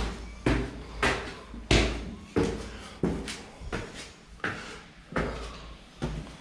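Footsteps on a hard floor, about ten steps at a steady walking pace, each step echoing.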